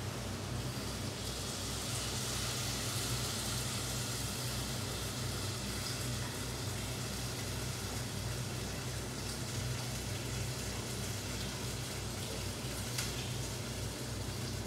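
Vegetable stock pouring from a carton into a saucepan of cooking vegetables, a steady pour with a low hum underneath.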